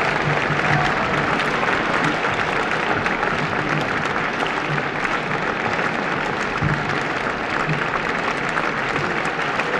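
Theatre audience applauding steadily as the dancers take their bows, a dense, even clatter of many hands.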